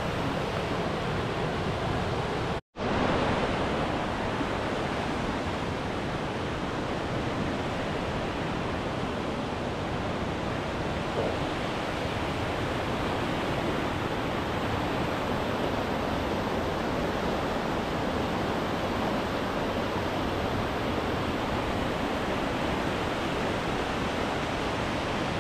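Steady rush of fast-flowing water, even and unbroken, cutting out for an instant about two and a half seconds in.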